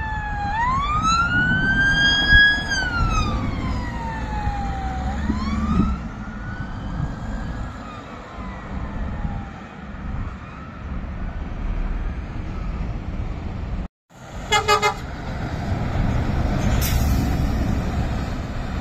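Police car siren wailing: it rises, holds and falls in pitch over road traffic, then starts a second rise that fades. Later a heavy lorry passes close by with its engine running, just after a short rapid rattling burst.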